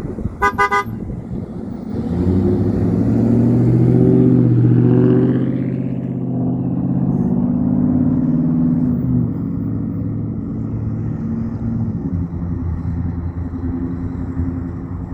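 A short horn toot, then a large truck passing with its engine running loud. The engine builds about two seconds in, is loudest around four to five seconds, and eases off by about nine seconds into steady road noise.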